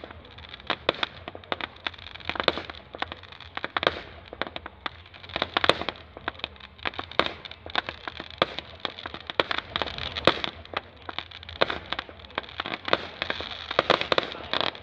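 Fireworks display: a continuous, irregular run of sharp bangs and crackling from bursting shells, with a couple of louder reports around six and ten seconds in.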